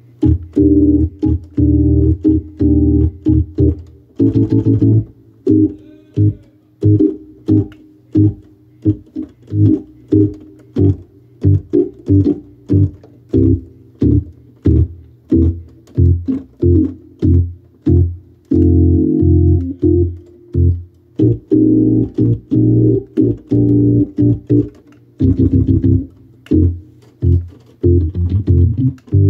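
Hammond organ being played: full chords over low bass notes, held for a few seconds at a time, with long runs of short, clipped chord stabs about twice a second in between.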